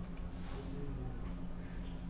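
Faint background music with steady low bass notes.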